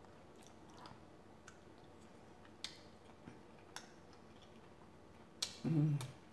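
Close-miked chewing of a mouthful of chicken tikka masala and rice: soft wet mouth clicks and smacks, about one a second. A brief low vocal sound comes near the end.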